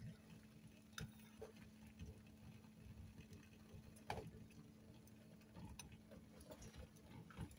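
Faint clicks of a metal spoon and egg against a small stainless steel pot as the egg is lowered into the water, the loudest about four seconds in, over a low steady hum.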